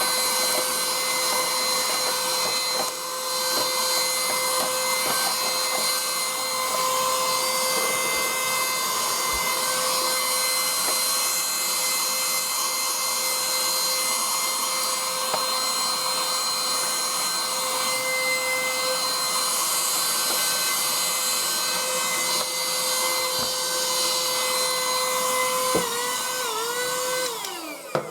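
Small vacuum cleaner running steadily with a high motor whine, sucking dust out of an opened console, with a few light knocks. Near the end its pitch wobbles briefly, then it spins down and stops.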